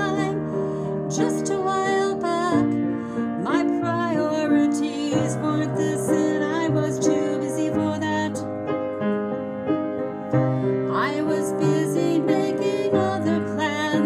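A woman singing a slow song over piano accompaniment, the piano chords changing about every two and a half seconds.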